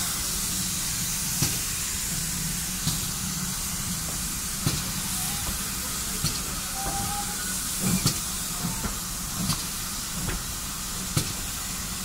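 Steam locomotive hissing steam steadily over a low rumble, with a short sharp click about every second and a half.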